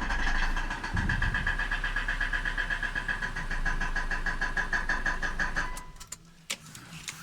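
Car engine idling with a fast, rhythmic knock from the automatic transmission, which the owner suspects comes from a torque converter that was not fully seated on the gearbox and has broken something inside. The engine is switched off near the end and the knocking stops suddenly, followed by a few small clicks.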